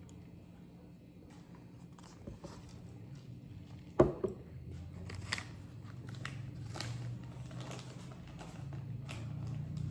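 Mouth-close eating sounds: scattered crunches and chewing clicks, with one sharp knock about four seconds in.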